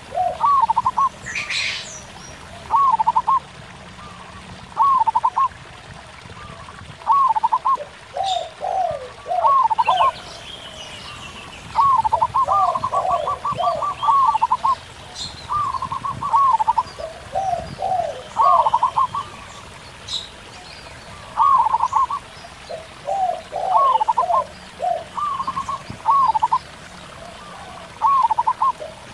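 Zebra doves (perkutut) and spotted doves (tekukur) cooing back and forth in short repeated phrases of a few notes, about every one to two seconds, over a faint trickle of stream water.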